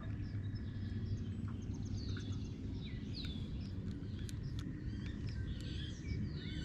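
Several songbirds chirping and whistling, with many short down-slurred notes, over a steady low hum.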